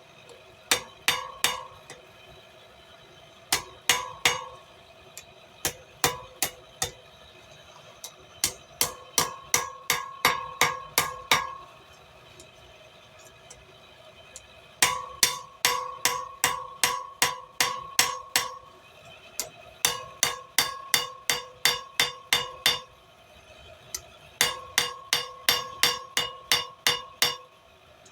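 Hand hammer striking steel bar stock on an anvil while forging, in runs of quick blows, about three or four a second, broken by short pauses. Each blow rings with a clear metallic tone.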